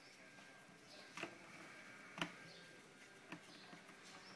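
Near silence with a few faint clicks about a second apart, the loudest a little past two seconds in, as a screwdriver is turned to drive a screw into a fencing stapler's plastic housing.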